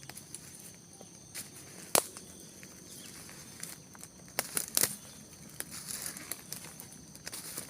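Forest ambience: a steady high-pitched chorus of birds and insects, broken by sharp crackles and snaps, the loudest about two seconds in and a cluster just before five seconds.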